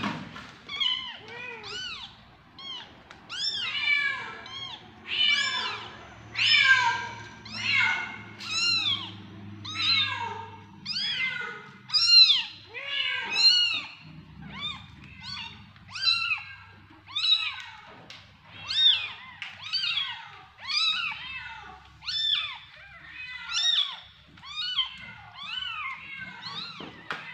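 Young kittens mewing over and over, high-pitched calls that rise and fall, about one or two a second, with several voices sometimes overlapping.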